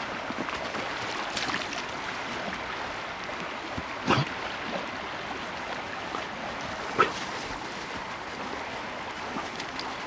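River water rushing steadily, with two short sharp sounds about four and seven seconds in.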